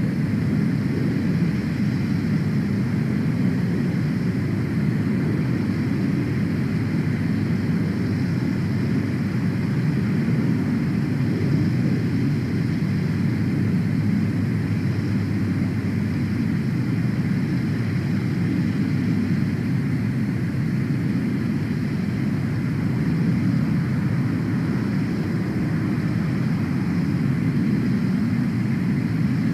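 Steady low rumbling noise with no distinct tones and no sudden sounds.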